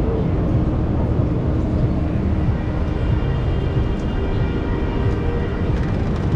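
Steady city street noise: a low rumble of traffic and crowd. Faint music comes in about halfway through.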